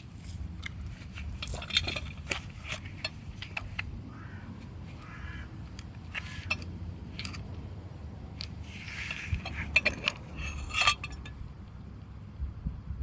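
Handling noises: irregular clicks, knocks and light rattles of hard objects, with a few short rasping sounds.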